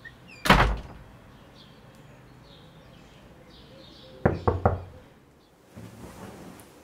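Knocking on a wooden door: one heavy knock, then about three and a half seconds later three quick knocks in a row. A soft shuffle of movement follows.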